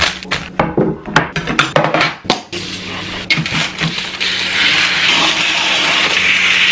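Kitchen food-preparation sounds: a quick run of knocks and clicks, then a steady hiss that builds over the last few seconds.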